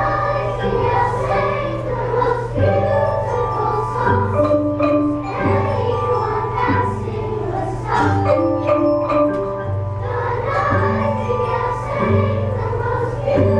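Elementary school children's choir singing with an instrumental ensemble, with mallet percussion such as xylophones and glockenspiels and a low bass line that changes notes every second or two.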